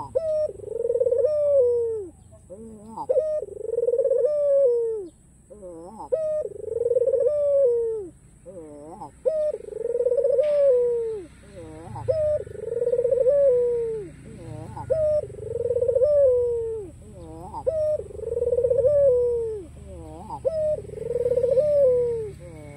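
White Barbary dove (domestic collared dove) cooing over and over, about one coo every one and a half to two seconds. Each coo is a short note followed by a long rolling note that drops in pitch at the end.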